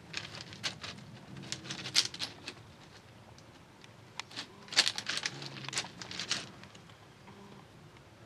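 Footsteps crunching on loose gravel, in three short spells of quick scrunching steps with pauses between.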